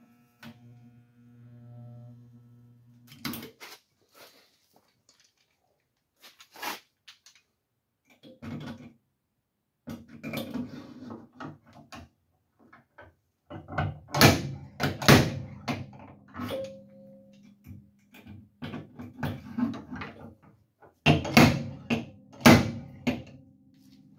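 Repeated sharp metal knocks and clanks as pins on the dented steel box side of a pickup are pulled with a dent puller. Irregular strikes, heaviest in two clusters in the second half. A steady low hum runs for the first three seconds and again near the end.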